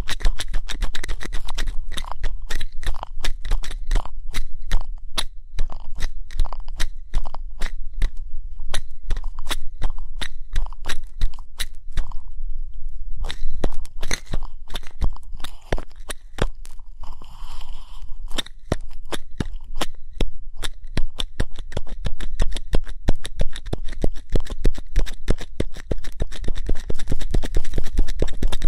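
Ear-cleaning ASMR: an ear pick scraping and scratching right at the microphone, a dense crackle of small clicks and crunches with a brief lull about twelve seconds in, over a low rumble.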